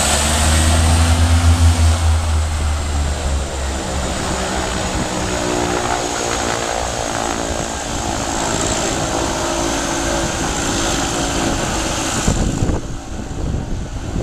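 Dornier Do 228's twin turboprop engines running at high power at the head of the runway before takeoff: a deep, beating propeller drone with a steady high turbine whine. The drone is strongest in the first few seconds, and the level drops abruptly about twelve seconds in.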